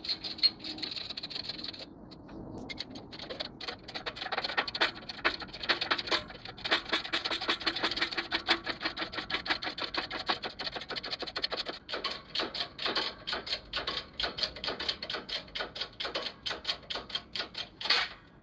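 Hydraulic shop press's bottle jack being hand-pumped to press out an old control arm bushing: a fast, steady run of mechanical clicks, about four a second, that stops abruptly near the end.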